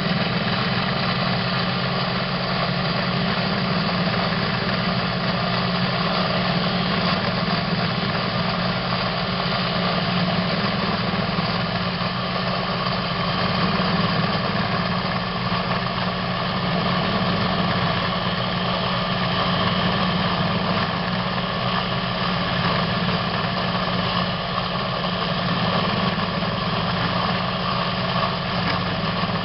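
CNC machine running steadily while machining an M20 thread in a tube: a constant motor hum with a steady whine above it.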